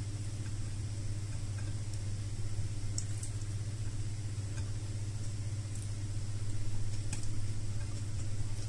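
Steady low hum, with a few faint clicks from chewing and from fingers picking grilled okra off a plate.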